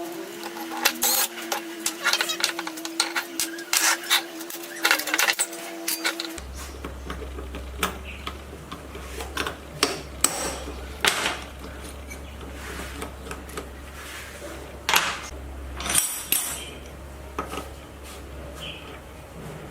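Metal tools and parts clinking and knocking as they are handled, many sharp clicks in quick succession over a steady hum. About six seconds in, the hum stops abruptly and a lower hum takes its place, with only scattered clinks after that.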